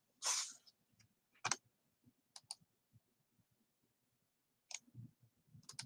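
A short breath, then faint, scattered sharp clicks of a computer mouse: one about a second and a half in, a quick pair near two and a half seconds, and a few more near the end.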